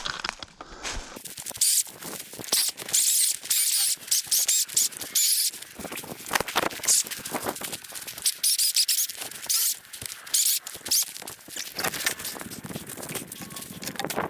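Irregular scraping, crackling and rustling of branches and wood being shifted and straightened up by hand, with many short sharp snaps.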